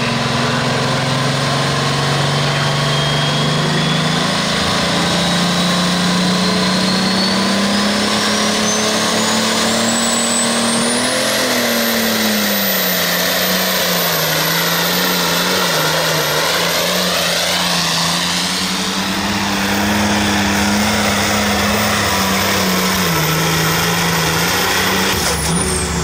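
Oliver 1850 super stock pulling tractor's turbocharged diesel engine running flat out while it drags a weight-transfer sled. A high turbo whine climbs steadily over the first dozen seconds and holds while the engine note wavers under load. Near the end the whine drops sharply as the throttle is cut at the end of the pull.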